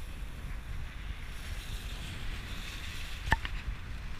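Wind buffeting the microphone of a GoPro mounted outside a truck, over the truck's low rumble as it drives through snow. A single sharp click about three seconds in.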